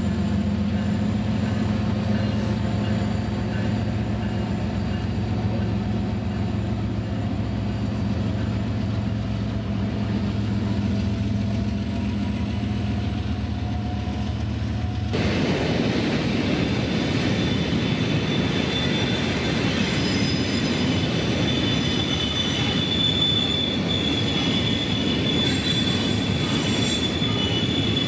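Freight train passing at close range: for about the first half, BNSF diesel locomotives' engines give a steady low drone. About halfway through it changes suddenly to the rumble of tank cars rolling by, with a high, steady wheel squeal coming in.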